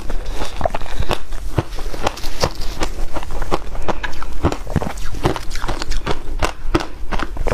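Close-up chewing of a mouthful of ice: a rapid, irregular run of crunches, several a second.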